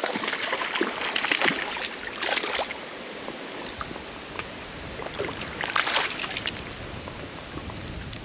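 Hooked brook trout thrashing at the creek's surface as it is reeled in and netted: a few short bursts of splashing, the last about six seconds in, over the steady rush of the stream.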